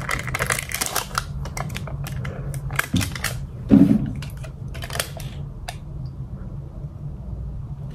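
Irregular clicks and crinkles from a water container being handled as someone struggles to open it and drink from it, over a steady low hum.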